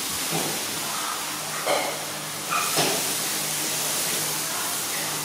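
Steady hiss of background room noise with a faint low hum, broken by two or three short faint sounds between about two and three seconds in.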